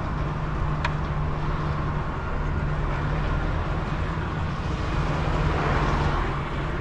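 Diesel engine of a DAF heavy recovery truck running steadily while the truck moves slowly across a yard, with a short click about a second in.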